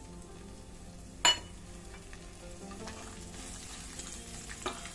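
Sliced onions frying in hot oil with whole spices: a steady sizzle. One sharp click about a second in, and a fainter one near the end.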